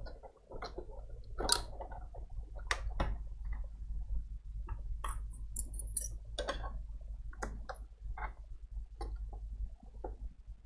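Scattered light clicks and taps of hands working inside a desktop PC case as the CMOS coin-cell battery is taken out of its holder and set down on the metal chassis to reset the BIOS, over a low steady hum.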